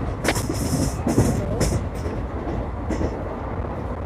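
Passenger train running on the rails: a steady low rumble with repeated short, bright clattering bursts over it.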